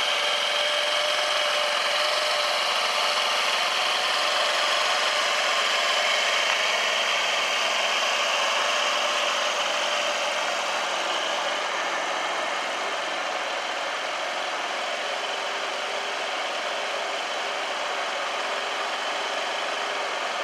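Honda Crea Scoopy scooter's engine idling steadily, getting slightly quieter about halfway through.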